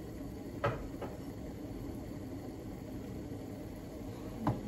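Steady low hum of room noise with two light knocks, one about a second in and a duller one near the end, as cups and glasses are handled on a kitchen cupboard shelf.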